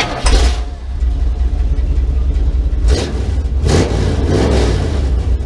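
A car engine running with a deep, steady rumble, revved up in surges near the start and again about three seconds in.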